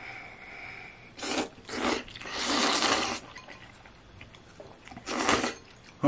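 A person slurping ramen noodles and broth from a bowl: a few short, noisy slurps, the longest about two to three seconds in, and another near the end.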